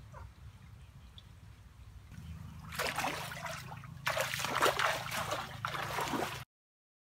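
Bare feet splashing through shallow creek water as a person wades away, starting about three seconds in and cutting off abruptly near the end.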